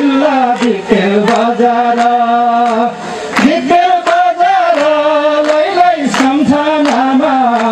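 A man singing into a microphone, holding long notes that slide between pitches.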